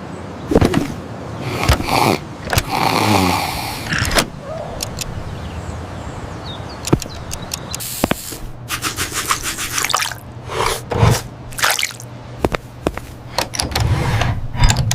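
A busy run of short sound effects: clicks, knocks and scrapes, with a falling swish a few seconds in, a quick rattle of clicks about halfway, and a steady low hum under the second half.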